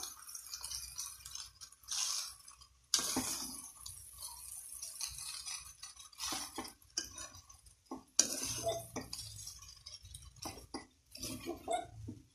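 A steel slotted spoon scrapes and clinks against a steel kadai as crumbled idiyappam is tossed and mixed. The strokes are uneven and stop and start abruptly a few times.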